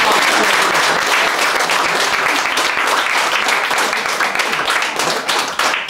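Applause from a small group of people clapping, stopping just before the end.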